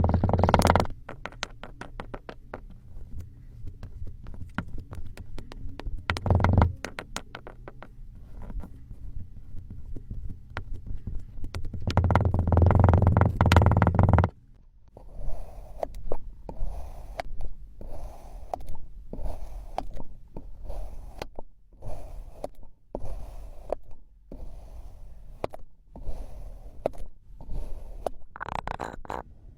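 Kinetic sand being cut with a knife: scraping, crunching slices with sharp clicks. In the second half the strokes come as a steady run of short slices, about one a second.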